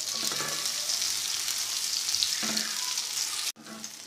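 Ghee sizzling and crackling under a stuffed egg paratha frying on a tawa over a low flame. The sizzle drops off sharply about three and a half seconds in.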